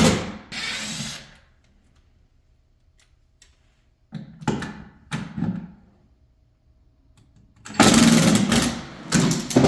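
Power drill driving screws out of a wooden bed frame in short bursts: about a second at the start, two brief pulses around four to five seconds in, and a longer run of nearly two seconds near the end.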